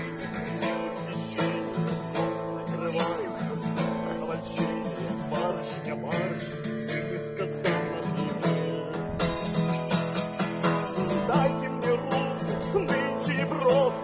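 Acoustic guitar strummed continuously, playing chords.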